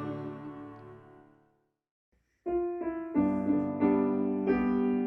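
The last chord of a recorded gospel song fades away, then after a brief silence a piano begins playing a song introduction, striking notes and chords at a steady pace.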